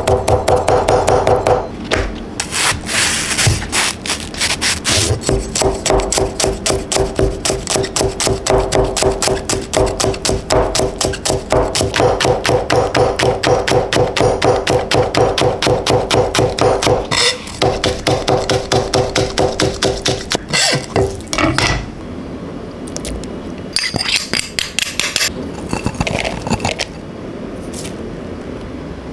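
Chinese cleaver chopping on a plastic cutting board in a fast, even run of knocks, mincing ginger and then slicing green onion. The knocks thin out and grow sparser after about twenty seconds.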